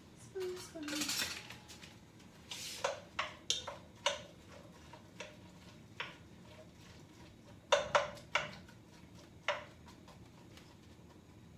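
A wooden spoon stirring in a blue enamelled pot on the stove, knocking and clinking against its sides in about a dozen short, scattered strokes, the loudest a pair about eight seconds in.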